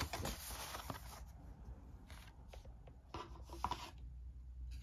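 Sheets of paper rustling and sliding as they are handled and set down on a wooden table, in short spells, loudest right at the start and again about three seconds in.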